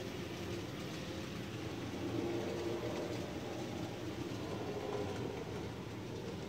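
Model freight train running along layout track: a steady whirring rumble from the locomotive's motor and the wheels on the rails.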